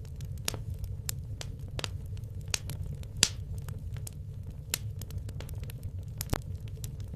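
Logs burning in a fireplace, crackling with irregular sharp pops over a steady low rumble; one louder pop about three seconds in.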